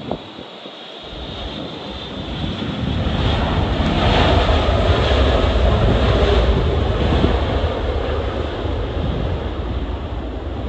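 Jet airliner's engines passing close by, swelling to a peak about four seconds in and then slowly fading. Gusty wind rumbles on the microphone underneath.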